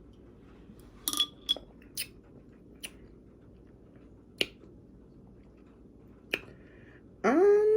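Scattered sharp mouth clicks and lip smacks from a person tasting a soda, about half a dozen spread over several seconds. Near the end comes a short vocal sound that rises in pitch.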